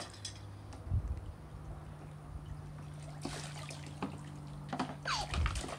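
Water trickling and dribbling from a plastic toy scoop lifted out of a toy water table, with a dull knock about a second in.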